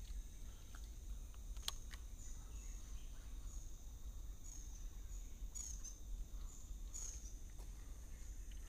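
Forest ambience: a steady high-pitched insect drone, with short high chirps between about two and seven seconds in and a few faint clicks.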